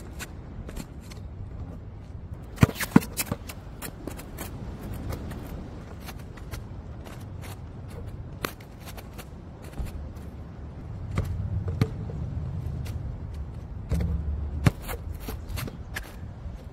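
A basketball bouncing and knocking on an outdoor court: a run of short knocks, the loudest two in quick succession about three seconds in and another near fifteen seconds, over a steady low rumble.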